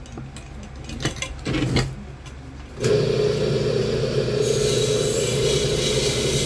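A few light metal clicks from tools on an aluminium pressure-cooker lid, then about three seconds in a loud, steady machine noise starts abruptly and keeps running, with a hiss added a little later.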